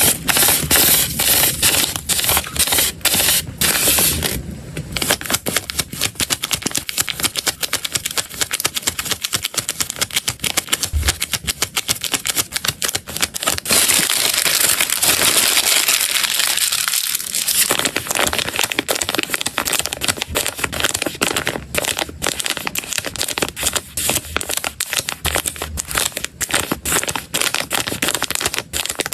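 Thin plastic packaging crinkling and crackling close to the microphone as it is handled: label backing sheets, clear plastic bags and zip-lock snack bags. The sound is a dense run of quick crackles, with a longer unbroken rustle about halfway through.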